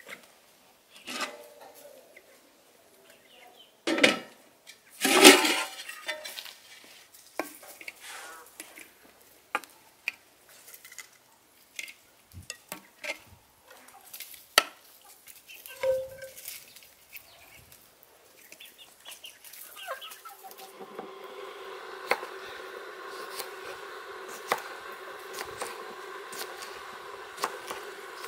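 Metal cookware clanking and scraping: two loud clangs about four and five seconds in, then scattered clinks as a metal spoon stirs fried potatoes and chicken on the sadj. In the last third a steady, even sound sets in, with light knocks over it.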